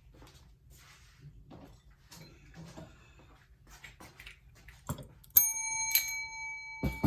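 A bell struck twice, about five and six seconds in, each strike ringing on in a clear, sustained tone; faint handling knocks and rustling come before it.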